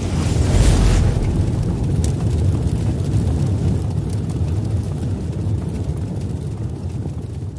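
A cinematic logo-reveal sound effect: a deep, noisy rumble that swells in the first second, then holds and slowly eases off, with a single sharp tick about two seconds in.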